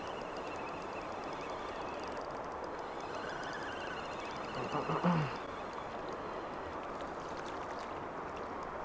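Steady rush of flowing river current and wind, with a short louder sound about five seconds in.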